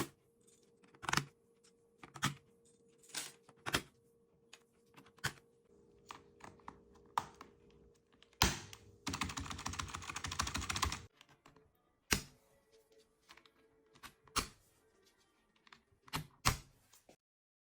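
Computer keyboard keys clacking: single keypresses spaced apart, a burst of fast typing about nine seconds in, then a few more presses before it stops.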